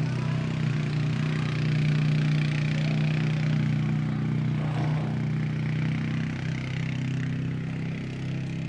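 A steady low mechanical hum, like an engine running, with a fainter hiss above it.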